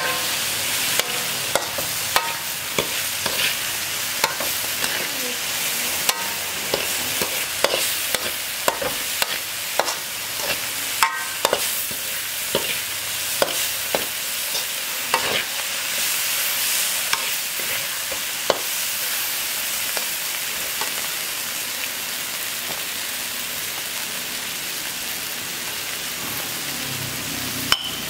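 Insect larvae stir-frying in a wok: a steady sizzle with a metal spatula scraping and clicking against the pan. The clicks come often through most of the stretch and grow sparser near the end.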